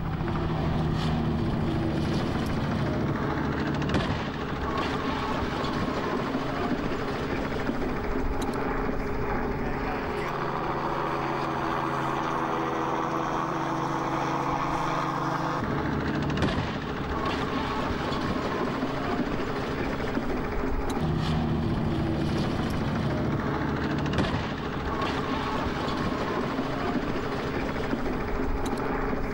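A steady low engine drone with a few faint knocks; its tone changes about halfway through.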